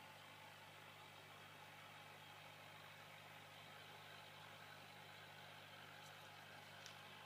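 Faint, steady hum of an aquarium filter or air pump over a low hiss, near silence, with a couple of faint ticks near the end.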